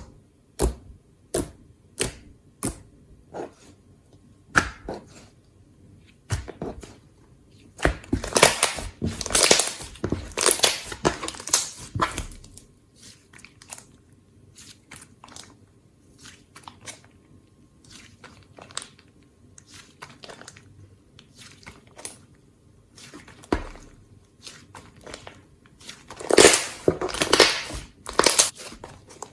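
Slime being squished and poked by hand, making sharp pops and clicks, with two longer stretches of dense, crackly squishing.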